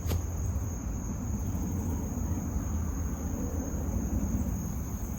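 Insects keep up a steady, unbroken high-pitched trill, with a low rumble underneath throughout and one short click right at the start.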